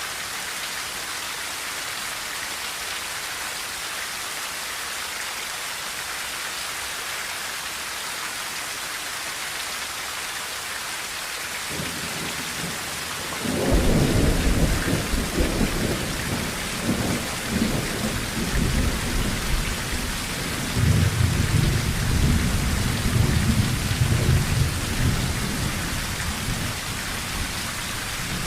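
Steady rain on a tin roof, an even hiss. About halfway through, a long rolling rumble of thunder builds in and keeps going, swelling again a few seconds later.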